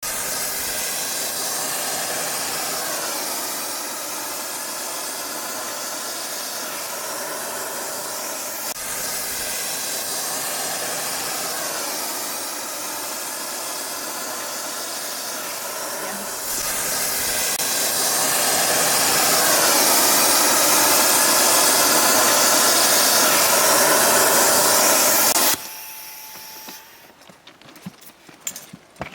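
Loud, steady hissing roar of a railroad thermite welding operation. It grows louder about two-thirds of the way through and then cuts off abruptly, leaving scattered clicks and knocks.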